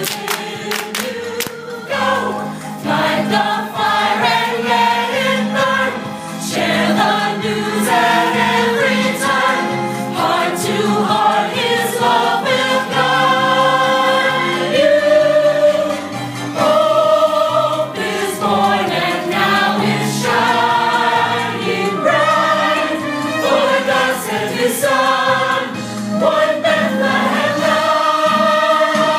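A group of men and women singing together as a choir in a gospel-style song over instrumental accompaniment.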